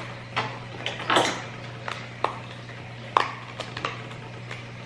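Small cardboard boxes being handled and pulled open: scattered sharp clicks and taps, with a short tearing rustle about a second in, over a steady low hum.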